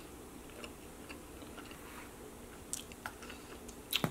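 Close-up eating sounds: soft, wet chewing and mouth clicks, with a few sharper clicks about three seconds in and again near the end.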